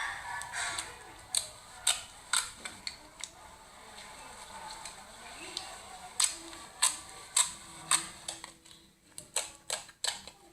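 Slime being squeezed and poked, giving a run of sharp, wet popping clicks as trapped air bursts, about two a second, with a quicker cluster near the end.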